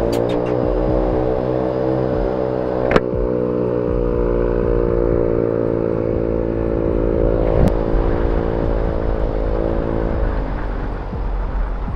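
Yamaha Mio i125 scooter's single-cylinder fuel-injected engine running steadily with a low rumble, its throttle body freshly cleaned. A sharp click comes about three seconds in and another near eight seconds, and the engine note fades near the end.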